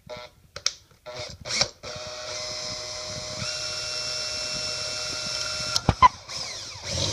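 Handheld electric drill boring a hole through the thin plastic wall of a tool tray. A few short bursts come first, then about four seconds of steady whirring whose pitch steps up partway through, ending with a couple of sharp clacks.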